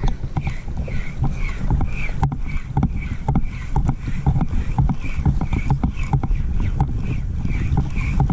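A size-8000 spinning reel being cranked steadily during a jigging retrieve, making a regular sound about twice a second with small ticks, over wind rumble on the microphone.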